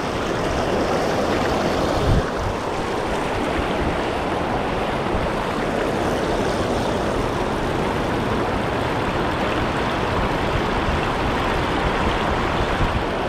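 Shallow river rushing over rocky riffles, a steady wash of moving water, with a brief low bump about two seconds in.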